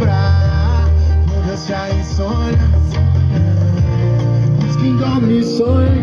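Music with heavy, pulsing bass and a guitar melody, played loud through a home mini-system stereo's speakers.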